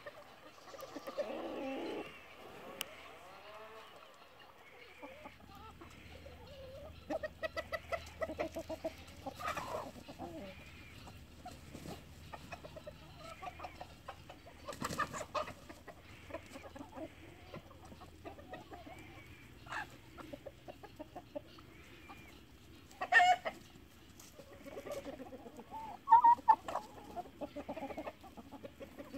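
A flock of domestic chickens clucking, with a couple of louder, sharper calls in the second half.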